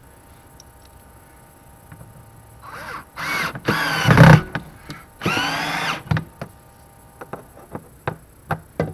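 Cordless drill run twice against a metal TV wall-mount bracket, fastening it to the cabinet wall: the first run starts about three seconds in and is loudest near its end, and the second is shorter, just after five seconds. Scattered light clicks and taps follow.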